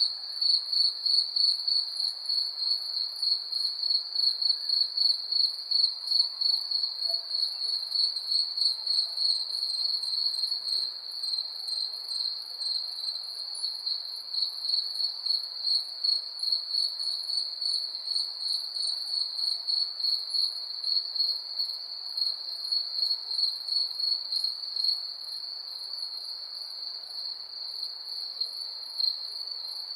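Crickets chirping at night in an even, high-pitched rhythm of a few chirps a second, with a fainter, higher insect trill above. The pulsing softens into a steadier trill near the end.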